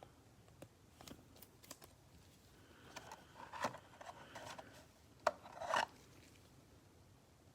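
Trading cards being handled on a table: card stock rubbing and sliding, with light ticks and one sharp tap about five seconds in.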